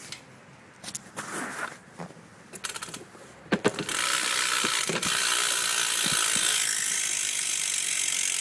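BMX Odyssey Hazard rear hub freewheeling: a few knocks and clicks as the wheel is handled, then from about four seconds in a fast, steady ratcheting buzz of the pawls as the wheel spins free. The buzz is not too loud but not dead silent.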